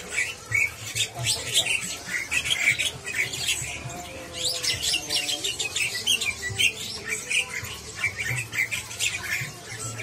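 Many caged songbirds chirping and calling at once, a dense overlapping chatter of quick, high chirps.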